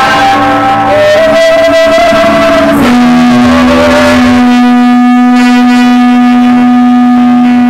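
Live band music played loud, with long held notes; from about three seconds in one low note is sustained steadily to the end.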